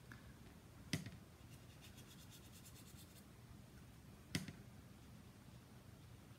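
Faint scratching of a water brush stroking across card stock, with two light taps, one about a second in and one after about four seconds.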